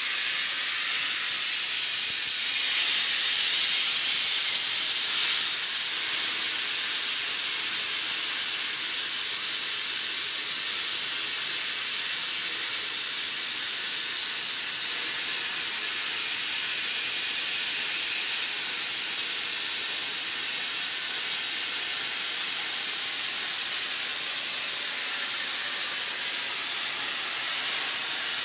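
CNC plasma torch cutting steel plate into slats: a loud, steady hiss from the plasma arc and its air jet.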